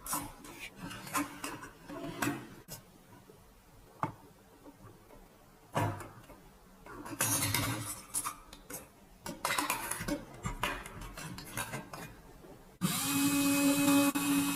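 Small metal and plastic parts being handled and fitted: irregular clicks, taps and short scraping clatters. About 13 seconds in, this gives way abruptly to a louder, steady hum with a few held tones.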